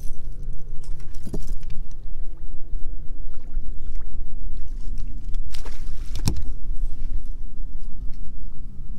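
Steady low rumble with water lapping against a bass boat's hull. There are two short knocks, a faint one about a second and a half in and a louder one about six seconds in.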